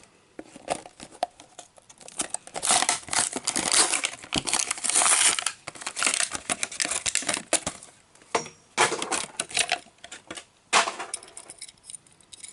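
Plastic blister and cardboard backing card of a boxed Hot Wheels die-cast car being pried apart and opened, giving irregular crinkling and tearing with many small clicks, busiest through the middle.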